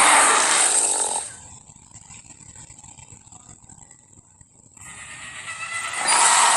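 Spinosaurus roar sound effect, a loud breathy, hissing roar without a clear pitch that fades out about a second in. After a quiet gap, a second roar swells from about five seconds in and is loud near the end.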